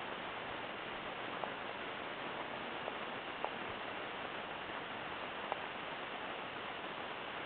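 Steady background hiss with a few short, faint ticks scattered through it.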